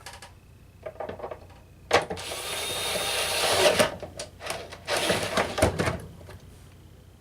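A screw being driven into the metal chassis of a water ionizer with a screwdriver. A few clicks come first, then about two seconds of rasping that grows louder, then a run of clicks and scrapes.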